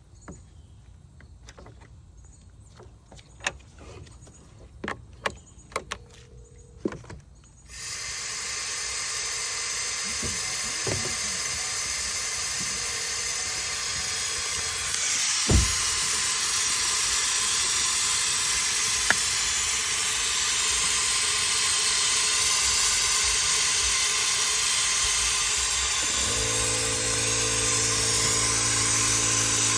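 A few clicks and knocks of handling, then compressed air starts hissing steadily about eight seconds in: air escaping while the car's cooling system is pressurised to find a leak. A low steady hum joins near the end.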